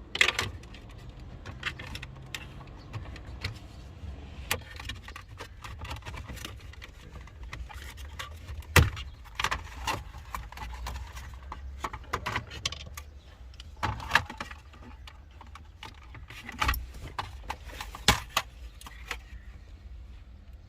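Irregular clicks, knocks and rattles of hand tools and plastic trim parts being handled while a car's centre-console cool box is dismantled, over a steady low hum.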